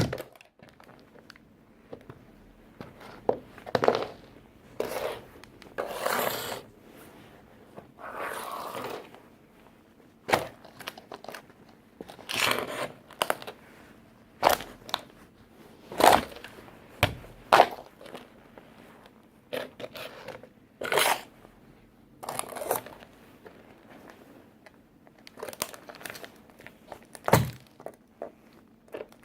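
Work boots stomping on a toy tractor, crushing it: a long run of irregular crunches, cracks and thuds of the toy breaking, with scraping and crinkling in between.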